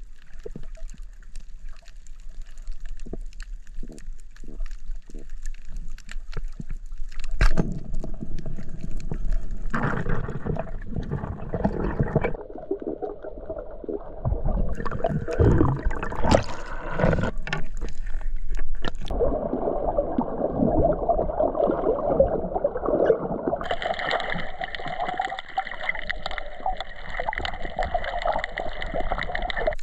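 Underwater water noise picked up by a submerged action camera, with bubbling and sloshing. The sound changes in character several times, growing fuller about a third of the way in and brighter near the end.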